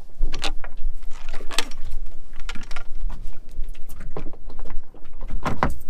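Wooden oars knocking and scraping against the dinghy's hard hull and deck as they are slid out from their storage under the side deck: several sharp, separate knocks, with a steady low rumble underneath.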